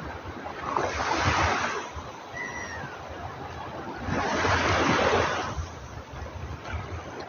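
Sea waves washing onto the shore, the surf swelling twice: about a second in and again around four seconds in.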